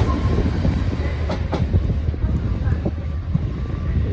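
Train running past with a steady low rumble, its wheels clicking over rail joints a few times.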